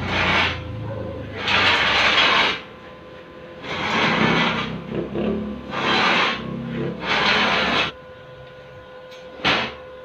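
Electric arc welding on a square steel-tube frame: about six short bursts of arc crackle, each half a second to a second long, as the joints are tack-welded. A steady faint hum runs underneath.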